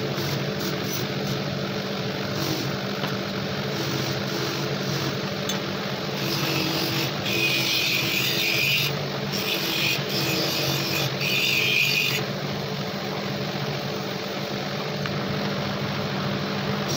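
Electric motor spinning a wheel at a steady hum, with a rasping hiss each time a small steel TT pistol part is pressed against the wheel to clean it up. The contact rasp comes in several short stretches in the middle, between about six and twelve seconds in.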